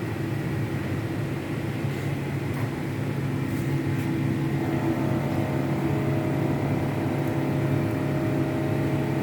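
Ersa ETS 250 wave soldering machine running with a steady hum; about four and a half seconds in, further higher-pitched tones join and it gets slightly louder as another unit of the machine starts up.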